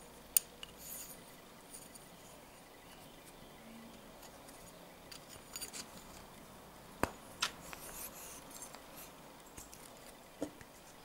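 Small copper and plastic tube parts handled and fitted together by hand: scattered sharp clicks and light taps with brief scraping and rubbing. The sharpest click comes just after the start, a pair comes about two-thirds of the way in and one more comes near the end.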